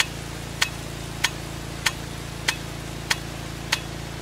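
Pelican 1.5-inch impact rain gun sprinkler running: its swing arm strikes the water jet with a sharp click about every 0.6 seconds, seven times, over a steady low hum and hiss of water.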